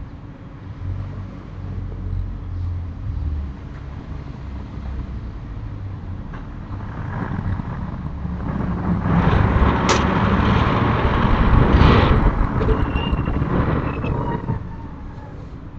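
Traffic noise: a road vehicle passing, swelling to its loudest about twelve seconds in and then fading, over a low steady rumble. A single sharp knock about ten seconds in.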